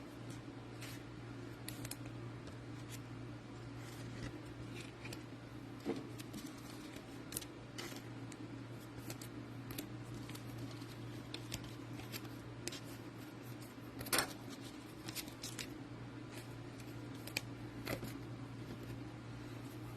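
Trading cards and their foil wrappers being handled at a table: scattered light clicks, slides and rustles, the sharpest about 14 seconds in, over a steady low hum.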